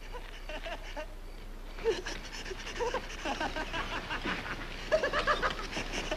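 A group of men hooting, hollering and laughing without clear words. It starts about two seconds in, with many voices overlapping.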